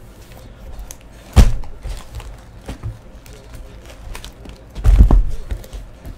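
Cardboard trading-card hobby boxes being shuffled and set down on a tabletop: one sharp thud about a second and a half in, a few heavier thumps around five seconds in, and light knocks between.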